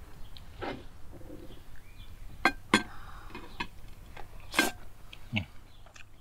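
Eating sounds: a few sharp clicks of a metal fork and spoon against a wooden bowl and plate, and chewing, with a few faint bird chirps behind.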